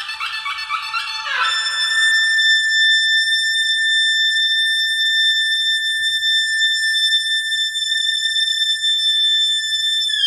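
Background music: a quick run of notes on a melodic instrument, then one high note held steadily for about eight seconds.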